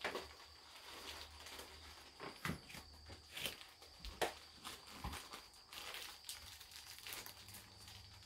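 Faint scattered clicks, taps and rustles of sugar being spooned out by hand, over a steady high-pitched whine.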